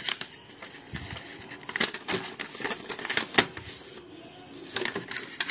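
Paper rustling and crinkling with scattered light clicks and taps as papers and small items are handled, two sharper knocks standing out about two and three and a half seconds in.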